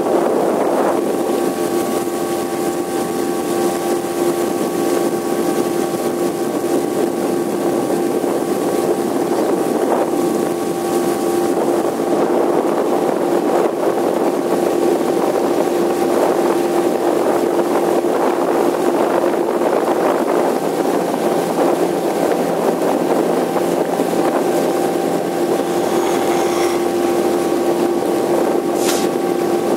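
Outboard motor pushing a small fishing boat along at a steady cruising speed: an even motor hum that holds one pitch, over a steady hiss. A brief sharp tick near the end.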